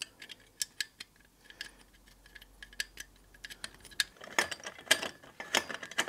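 Small, sharp metallic clicks and clinks, irregularly spaced, as an exhaust header bracket and its fastener are lined up and started by hand. In the second half they come thicker, with a socket ratchet wrench clicking as it turns the fastener.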